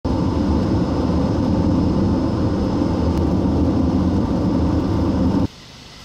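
Steady road noise of a car driving on a paved road, a dense low rumble of tyres and engine. It cuts off suddenly near the end, leaving a much quieter background.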